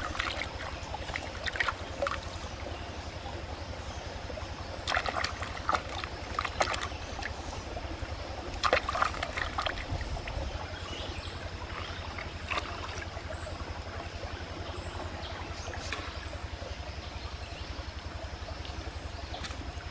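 Hands rinsing vegetables in shallow stream water: irregular splashing and dripping, with the busiest spells around five to seven seconds and around nine seconds in, over a steady low hum.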